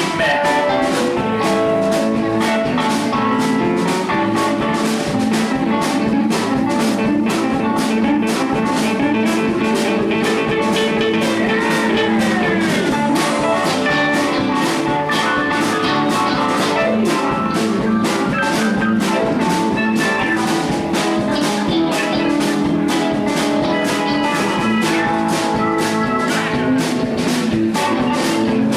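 Live band jamming: guitar over a drum kit keeping a steady beat, with a note sliding down in pitch about halfway through.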